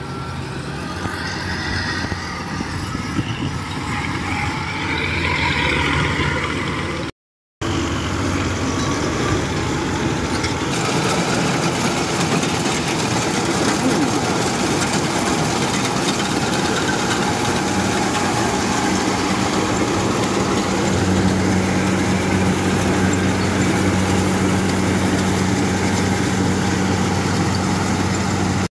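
Kubota rice combine harvester's diesel engine running steadily under load as the machine drives and cuts ripe rice, with the rumble of its cutting and threshing gear. The sound drops out completely for a moment about seven seconds in.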